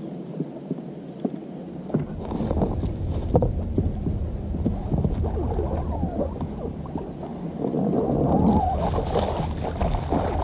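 Water splashing and sloshing beside a small boat as a hooked zander is played to the surface and scooped into a landing net, over a low rumble that sets in about two seconds in and grows loudest near the end.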